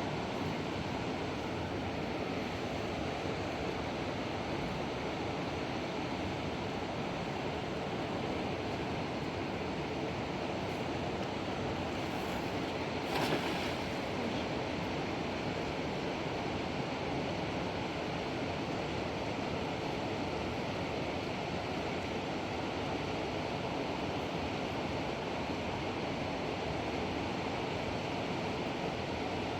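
Steady rush of flowing river water, with one short knock a little before halfway.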